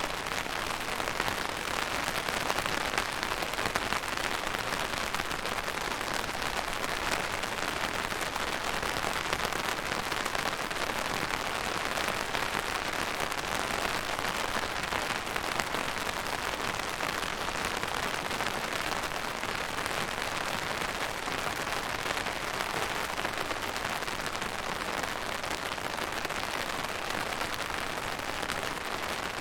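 Steady rain falling on a surface, an even hiss dense with fine pattering drops.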